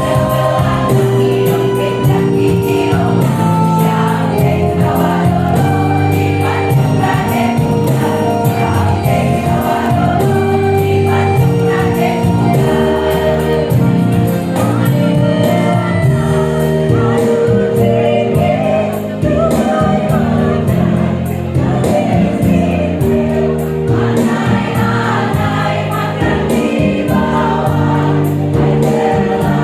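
Women's choir singing a song, with sustained notes over a low backing.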